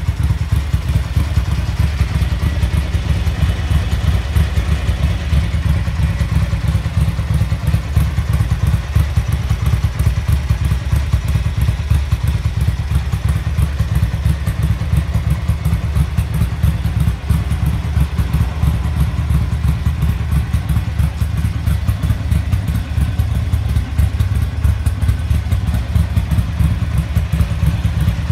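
The air-cooled 864 cc bevel-drive 90° V-twin of a 1979 Ducati 900 Mike Hailwood Replica idling steadily, with no revs.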